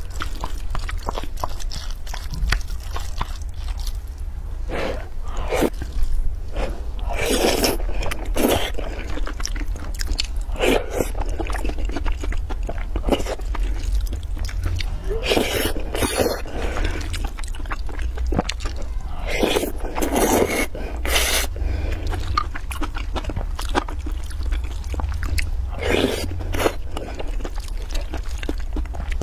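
Chopsticks and a wooden spoon stirring and scraping through a saucy dish of braised eggplant and glass noodles in a glass bowl, in irregular bursts of wet scraping. A steady low hum runs underneath.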